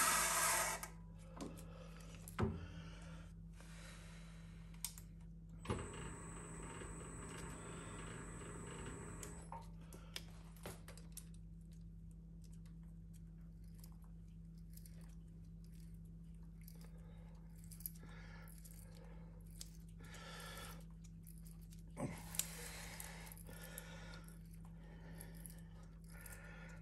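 A milling machine drilling a small tap-drill hole stops about a second in. After that come light handling sounds: scattered small metal clicks and clinks as the tooling is changed and a tap wrench is fitted, over a steady low hum.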